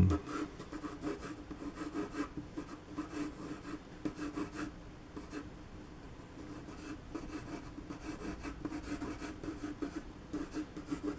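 Pencil sketching on watercolour paper: short scratching strokes in quick irregular runs, a little sparser around the middle.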